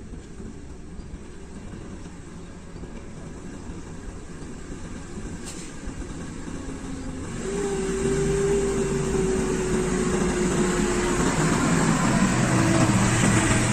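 Engine of heavy mining machinery running, growing clearly louder about halfway through, with a steady whine over the engine noise.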